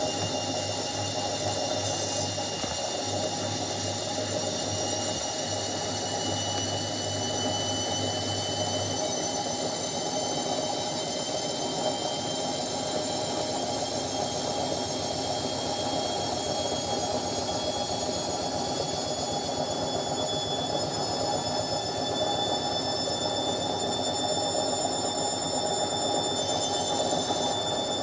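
Indesit 71252 washing machine running, with a steady rumble and a high motor whine that slowly rises in pitch. A low hum drops out about a third of the way through.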